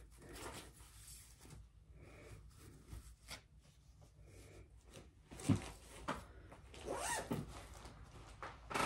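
Cross-stitch fabric and a cloth project bag being handled: faint rustling with light clicks, and a soft thump about five and a half seconds in.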